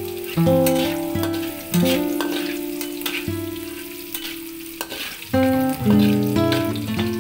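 Minced garlic and red chili sizzling in oil, with a spatula scraping and stirring across a metal wok. A melody of single notes plays over it, each note starting sharply and fading.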